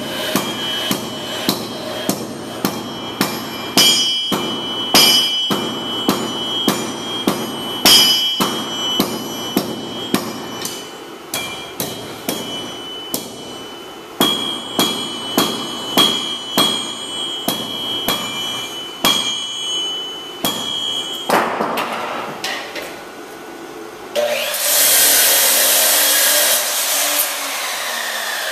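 Blacksmith's hammer striking hot steel on an anvil, about two blows a second, each blow ringing brightly. The blows stop a little over two-thirds of the way through. Near the end a loud, steady, hissing machine noise starts suddenly.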